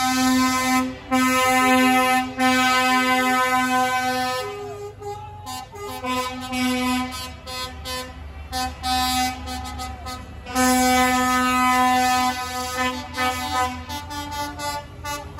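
Lorry air horns blasting as trucks drive past, with engine rumble underneath. Long held blasts come in the first few seconds and again just after the middle; short toots fill the gaps and the end.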